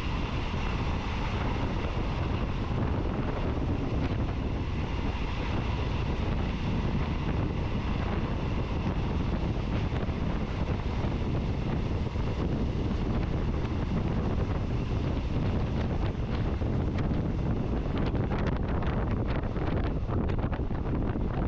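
Wind buffeting the microphone from a moving passenger train, over the steady rumble of the train running. Near the end comes a run of short sharp clicks and knocks.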